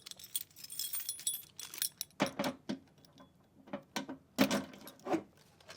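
A bunch of keys jangling and clinking as someone sorts through them for one key, with a few sharper clicks and knocks later on.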